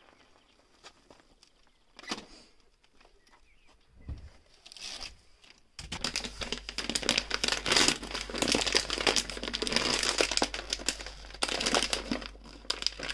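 Evergood whole-bean coffee bag crinkling and tearing as hands work it open, a dense rustle lasting several seconds. It starts about six seconds in, after a stretch of near quiet broken only by a few faint knocks.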